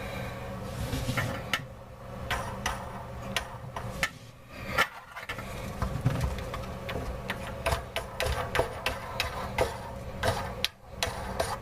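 Irregular clicks, rattles and small knocks of a faucet mounting nut and washer being threaded on by hand under a bathroom sink, over a steady low hum.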